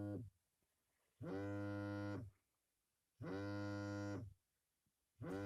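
Snoring: a steady, low buzzing note lasting about a second on each breath, repeating roughly every two seconds with quiet between. One snore is ending at the start, two come in full, and another begins near the end.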